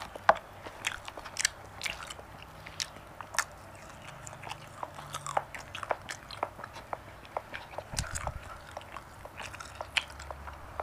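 Close-up mouth sounds of someone chewing marinated goat meat: irregular wet clicks and smacks, several a second.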